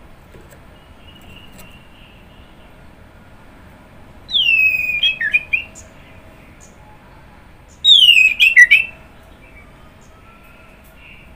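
Orange-headed thrush (anis merah) singing: two loud phrases about three and a half seconds apart, each opening with a clear whistle that slides down in pitch and running into a few quick short notes.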